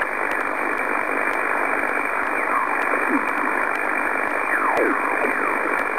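Shortwave transceiver receiving upper sideband on the 15-metre band while its dial is tuned up across the band: a steady hiss of band noise, with snatches of off-tune sideband voices sliding down in pitch as stations sweep past, twice in the middle.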